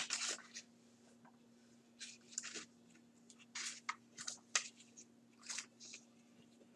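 Faint, irregular short crackly scrapes close to the microphone, about eight of them, over a steady low electrical hum.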